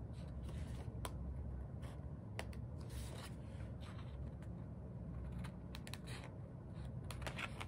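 Scissors cutting through folded cardstock: irregular snips and crisp paper crackles as the blades work along a drawn line.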